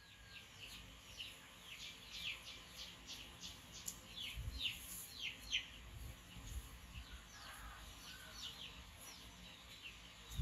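Faint bird chirps: a rapid series of short, quick downward-sweeping chirps over the first six seconds or so, then a few scattered ones.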